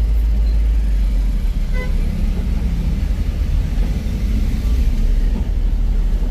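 Steady low engine rumble heard from inside a car's cabin as it creeps forward at low speed.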